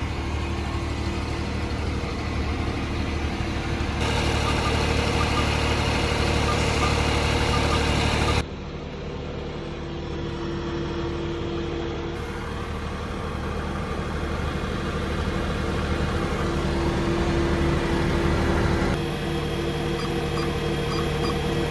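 Bobcat S70 skid steer loader's Kubota 1.0-litre three-cylinder diesel engine running steadily, its sound jumping abruptly in level and tone about 4, 8 and 19 seconds in.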